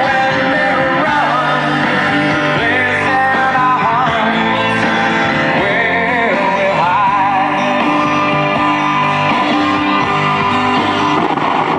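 A rock song with singing and guitar, coming from an FM radio station through a vintage Realistic STA-84 stereo receiver and its speakers.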